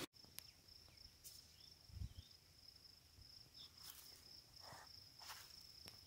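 Faint, steady high-pitched cricket trill, with a few short faint chirps and a soft low thump about two seconds in.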